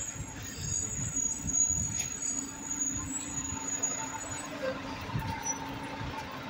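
Rear-loader garbage truck pulling away, its engine giving a low rumble with a steady hum coming in about halfway through. A thin high squeal sounds over it for the first four seconds or so.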